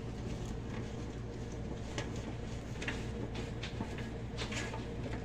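Broccoli florets being moved around by hand on a metal baking sheet: scattered soft taps and rustles, a few per second, over a steady low hum.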